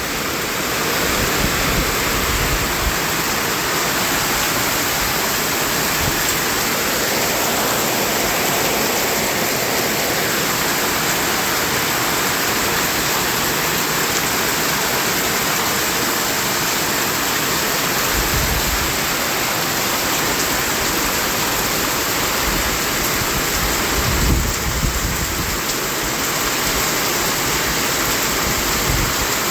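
Continuous white noise for baby sleep: a steady, even hiss spread across all pitches, with a couple of brief low rumbles about 18 and 24 seconds in.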